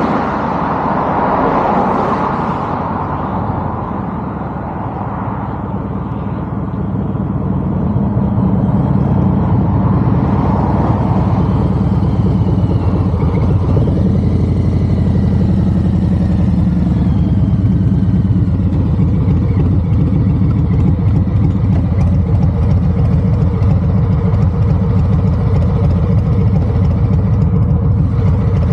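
A car passes in the first few seconds with tyre and road noise; then a Harley-Davidson FXDR's Milwaukee-Eight 114 V-twin idles steadily through a Two Brothers Comp-S 2-into-1 exhaust.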